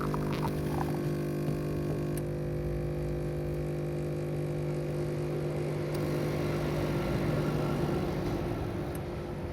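Mini espresso machine's pump running with a steady hum of several even tones while it brews, easing slightly near the end.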